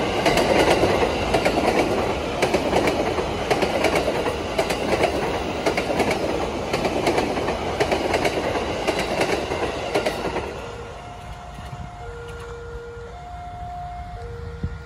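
A train passes over a level crossing with a steady rumble and repeated wheel clacks over the rail joints. About ten seconds in the train noise fades, and the crossing's warning siren is heard alternating between a high and a low tone, about one tone a second.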